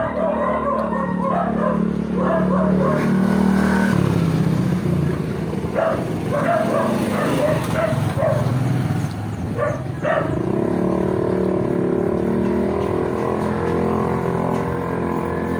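A motorcycle engine running close by, its pitch rising about ten seconds in, with a dog barking in short bouts at the start and again between about six and ten seconds in.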